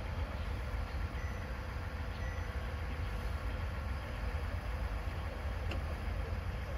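KiHa 110 series diesel railcar idling while standing still: a steady low engine rumble.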